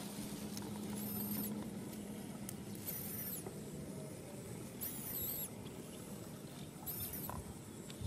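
High, thin squeaking calls, each rising then falling, repeated about once every two seconds.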